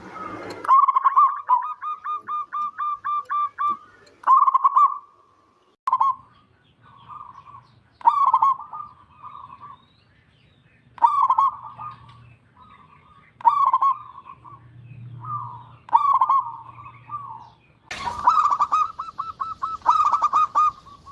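Zebra dove (perkutut) cooing. It opens with a fast run of clipped coos, about four a second, then gives short bubbling coo phrases every second or two. Near the end the calls come thick and fast over a rustling noise.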